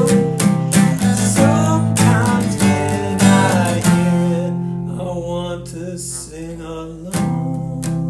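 Music: an acoustic guitar strumming a steady rhythm, easing off to quieter held notes about halfway through, then strumming again near the end.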